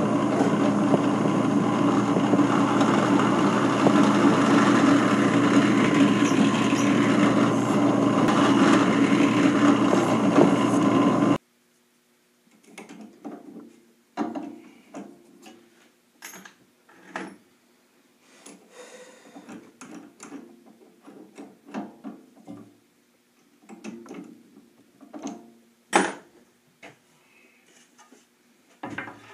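Drill press motor running steadily while drilling through a wooden board, cutting off abruptly about eleven seconds in. After that come scattered clicks and knocks as the chuck is opened and a countersink bit is fitted.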